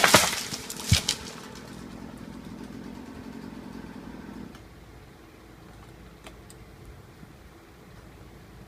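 Chainsaw idling after a cut and then shutting off about four and a half seconds in, with a few loud sharp knocks in the first second.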